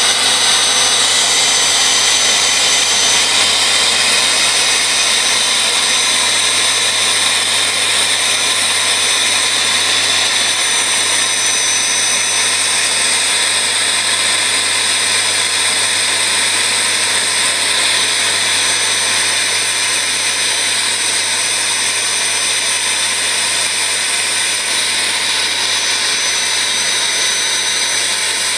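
Electric vacuum pump running steadily: a loud rushing motor noise with a thin steady high whine over it, easing slightly in level toward the end.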